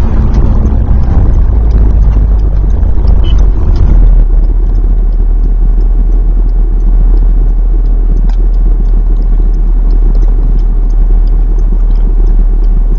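Honda S2000's four-cylinder engine and cabin rumble, heard through a poor camera microphone. The car is slowing at first, then about four seconds in the sound settles to a steady low engine idle.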